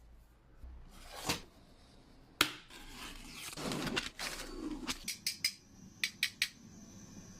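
Hard objects clicking and clattering as they are handled, with a sharp knock about two and a half seconds in, a stretch of rubbing and scraping, and a quick run of clicks near the end.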